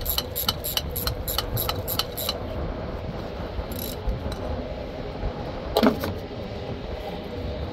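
A ratchet driver clicking at about four clicks a second as it loosens the hose clamp on a semi truck's coolant hose at the reservoir, stopping a little over two seconds in. An engine hums steadily underneath, and there is a single clunk near the six-second mark.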